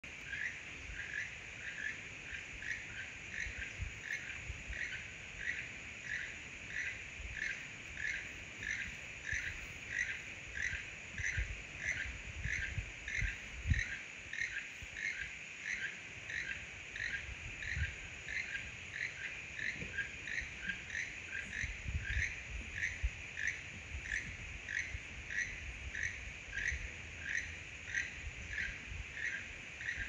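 Keel-billed toucan singing: a frog-like croak repeated steadily, about two calls a second, over a steady high hiss.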